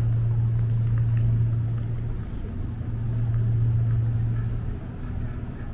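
A ferry's engine running with a steady low drone that swells and eases slightly as the boat pulls away from the landing.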